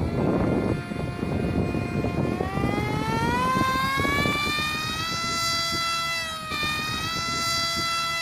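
Electric motor and propeller of an RC Su-47 model plane whining in flight, fitted with a newly replaced speed controller (ESC). The pitch rises steadily as the throttle opens over a couple of seconds, dips briefly, then holds. Wind rumbles on the microphone, mostly near the start.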